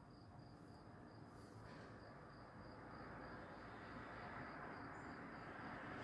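A cricket chirping faintly in a steady quick rhythm of about four chirps a second, stopping near the end, over a low rumble of background noise that slowly grows louder.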